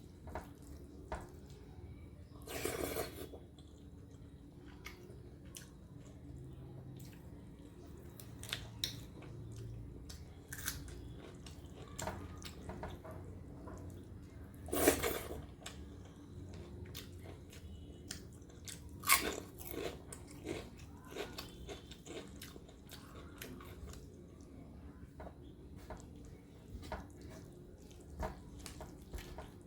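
Close-miked eating sounds: chewing and biting rice, dal and fried vegetables, with many small clicks and three louder crunches spread through.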